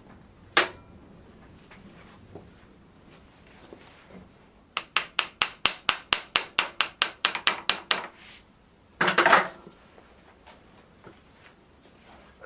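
A hammer driving out a motorcycle swingarm pivot bolt, its nut refitted a couple of turns to protect the threads: one sharp knock, then a fast even run of about sixteen ringing blows at roughly five a second. A short, louder scraping clatter follows a second later.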